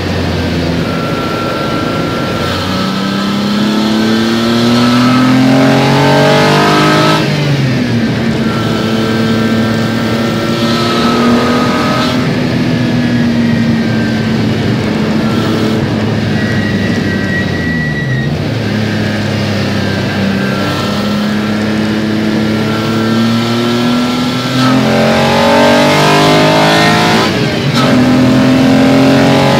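The twin Peugeot ES9J4 V6 engines of a Peugeot 205 race car, heard from inside the cabin at full throttle on track. The engine note climbs steadily in pitch as the car accelerates, then drops sharply at each gear change or lift for a corner, several times over.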